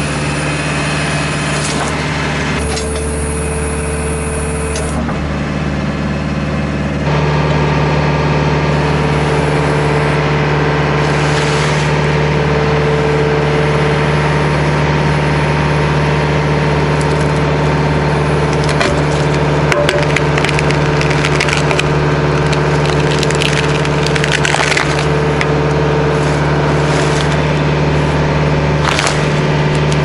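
RK55 compact tractor's diesel engine running steadily, stepping up in level about seven seconds in, while the backhoe bucket digs around a stump. Scattered cracks and snaps of wood as roots are popped, mostly in the second half.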